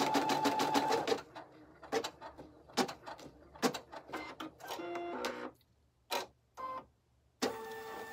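Embroidery machine stitching rapidly, about nine stitches a second, and stopping about a second in as the design finishes. It then makes a few clicks and several short whirring motor runs as the embroidery arm moves the hoop.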